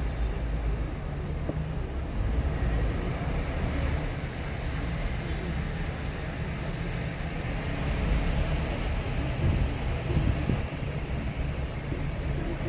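A car being driven: steady engine and tyre rumble, with brief louder swells about four and five seconds in.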